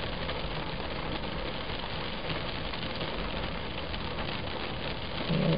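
Heavy rain falling steadily on wet pavement and parked cars, an even hiss with no thunder.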